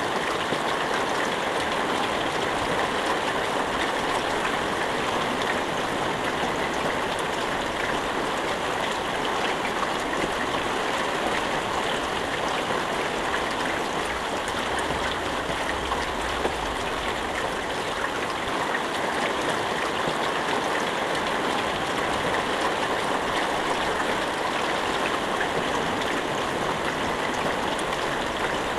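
Steady, even rain falling, with no thunder.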